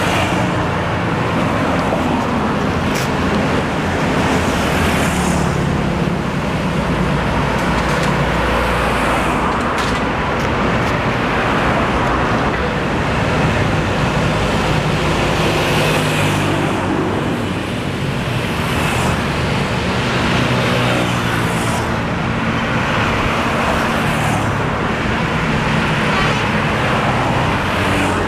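Road traffic: motor vehicle engines running steadily, with several vehicles passing by in swells of noise.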